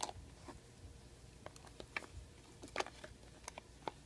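Faint, scattered light clicks and taps of small objects being handled, with soft rustling in between.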